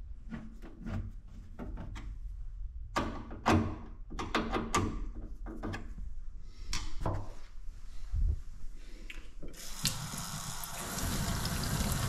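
Scattered light clicks and knocks, then near the end a kitchen mixer tap is opened and water runs steadily into a stainless steel sink, drawing hot water from the combi boiler.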